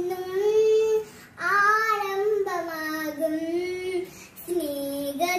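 A young girl singing solo with no accompaniment, holding long notes, with two short breaks for breath, about a second in and about four seconds in.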